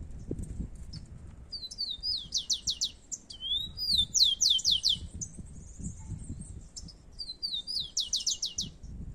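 Rufous-collared sparrow (tico-tico) singing three songs, each a few slurred whistles followed by a fast trill of falling notes, the middle one the loudest.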